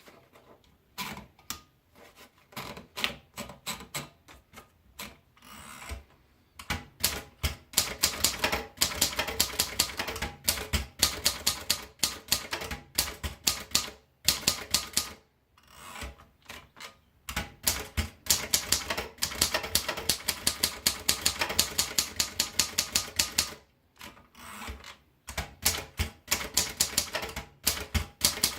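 Triumph Durabel manual portable typewriter being typed on. The key strikes come slowly and unevenly at first, then in fast runs of several seconds each, broken by short pauses around the middle and near the end.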